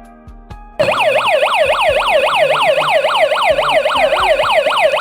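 D3D-D9 security alarm siren going off as the tripped shutter sensor sets off the alarm during a test. It starts abruptly about a second in and is a loud electronic wail that sweeps quickly up and down, about four times a second.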